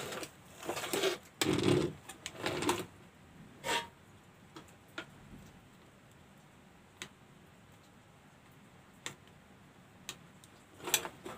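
Rustling and clattering of a CRT TV circuit board being gripped and turned over on a workbench, then a quiet stretch with a few faint isolated ticks.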